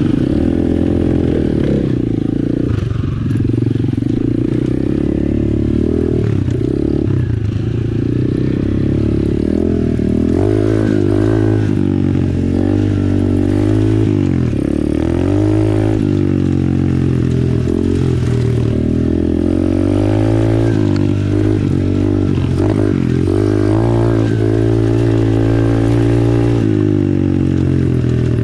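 Apollo RFZ 125cc pit bike's single-cylinder four-stroke engine running under way, its pitch rising and falling over and over as the throttle is opened and closed.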